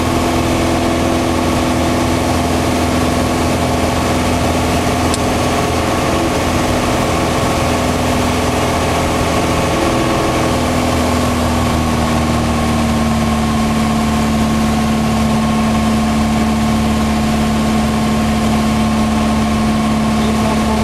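Piper Turbo Arrow's turbocharged six-cylinder engine and propeller droning steadily in cruise, heard inside the cabin. Its note drops slightly about halfway through as the rpm is brought back.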